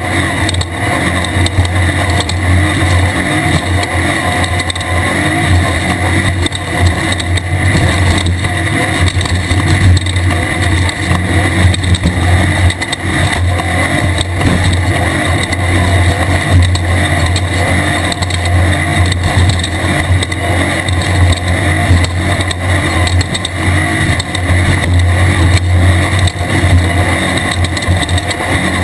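Class 1600 off-road race car's engine running hard and steady at speed, with frequent short knocks through the noise.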